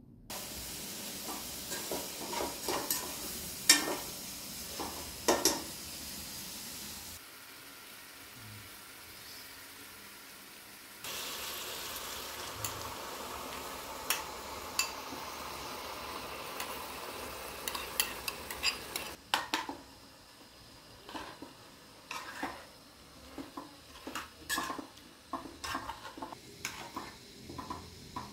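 Chicken sizzling in a steel cooking pot, with a metal spoon clinking and scraping against it as split peas are spooned in. In the last third the sizzle drops away and only the spoon's clinks and scrapes in the pot remain.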